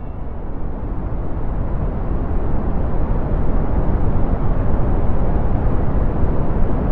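Churning sea surf: a dense, low rushing noise that swells over the first couple of seconds, then holds steady.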